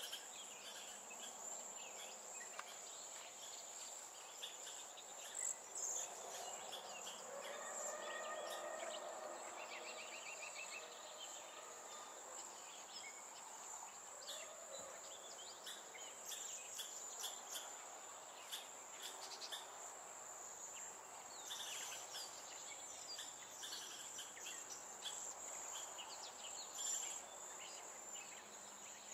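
Steady high-pitched insect trill, cricket-like, running throughout, with scattered short bird chirps and calls over it and a brief rapid trill about ten seconds in.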